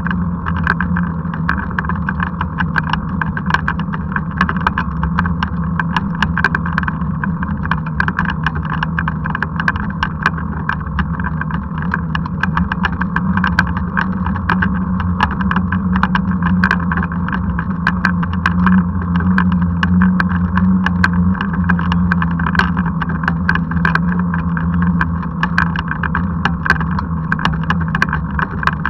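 Riding noise of a handcycle rolling along a paved road: a steady rumble from the tyres and frame, with many small irregular ticks and rattles.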